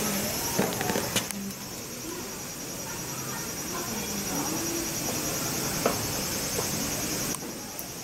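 A steady, high-pitched chorus of night insects, with faint distant voices and a few light clicks. The insect chorus drops in level near the end.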